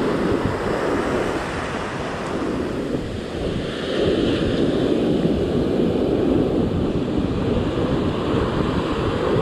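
Ocean surf breaking and foam washing up the sand around the feet, with wind blowing on the microphone. The wash dips a little, then swells louder again about four seconds in.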